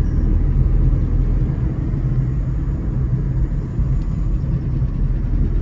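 Steady low rumble of a moving car, with engine and road noise heard from inside the cabin.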